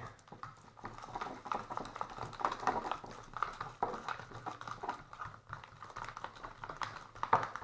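Spoons stirring and scraping thickening slime in small plastic cups: a rapid, irregular run of small clicks and taps, with a sharper click near the end. The slime is turning stiff and hard to mix after activator was added.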